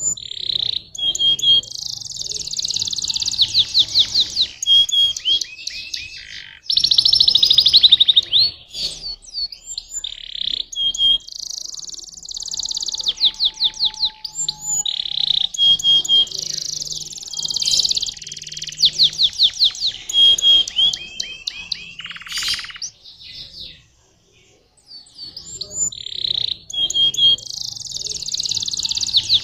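Domestic canary singing a long, varied song of fast trills and rolls, pausing briefly about 24 seconds in.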